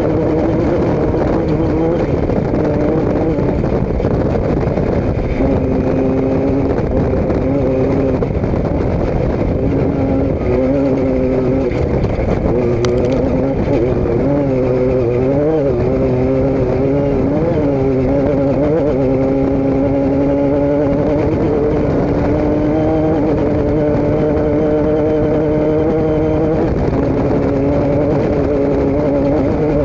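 A motor vehicle engine running steadily, its pitch wavering up and down for a few seconds around the middle before settling again.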